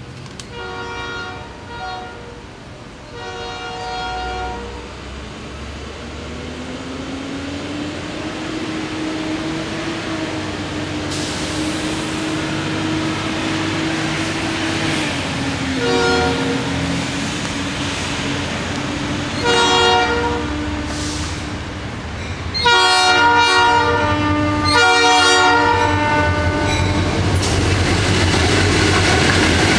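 Air horn of Florida East Coast diesel freight locomotives blowing a series of blasts for a road crossing as the train approaches: two blasts near the start, a short one and another a few seconds apart past halfway, then two long, loudest blasts near the end. Under the horn, the locomotives' engines and the rolling train grow steadily louder as they reach the crossing.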